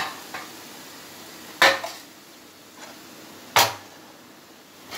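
A metal kadhai being handled on a gas stove: a small click at the start, then two loud metallic clanks about two seconds apart as the pan is lifted and set down on the burner grate.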